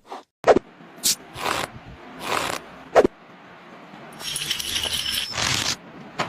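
Workshop handling noises: short scrapes and rubs, with two sharp knocks about half a second and three seconds in, and a longer rasping scrape near the end with a faint metallic ring.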